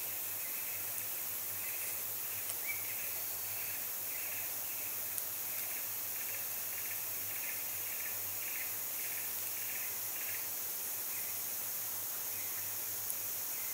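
Tropical forest ambience: a steady high-pitched drone of insects, with a repeated chirping about twice a second that fades out near the end. A few faint ticks stand out.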